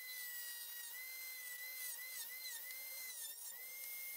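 Handheld mini rotary tool (die grinder) running with a small toothed wood-cutting saw disc, cutting a small piece of wood: a steady high whine whose pitch dips briefly several times as the blade bites into the wood.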